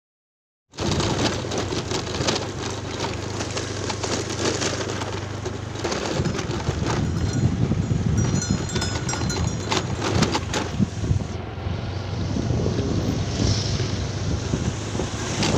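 Honda Scoopy scooter engine running as it rides along, with wind buffeting the microphone and scattered clicks and knocks. The sound starts suddenly under a second in, after silence.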